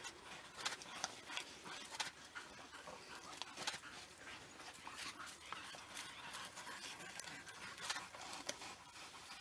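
African wild dogs feeding on an impala carcass: faint, irregular snapping and tearing sounds.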